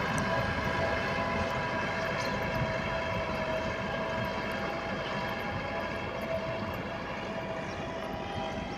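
Tractor diesel engine running steadily as it pulls a cultivator and levelling plank through a flooded paddy field.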